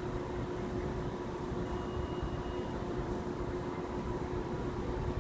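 Steady background rumble of a subway station platform with a constant low hum, while no train passes.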